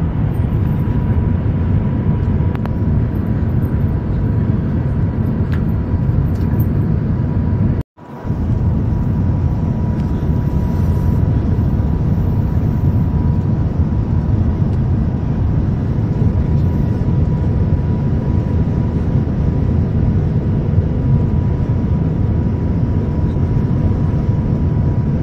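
Shanghai maglev train running at high speed, heard from inside the passenger cabin: a steady low rumble of air and running noise with a faint steady whine. The sound cuts out for a moment about eight seconds in.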